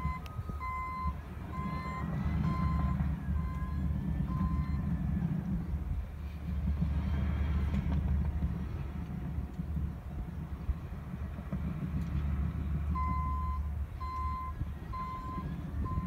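Distant heavy diesel earthmoving machines, a Cat D6 bulldozer among them, running steadily with a low drone. A backup alarm beeps about one and a half times a second for the first few seconds and again near the end, and faint high squeals come in between.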